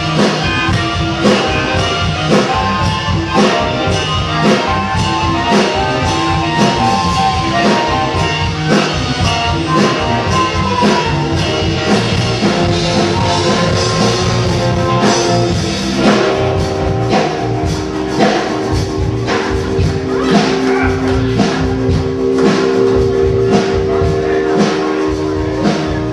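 Live rock band playing: electric guitars over a drum kit beating steadily. About sixteen seconds in, the guitars move from a busy run of notes to long held notes.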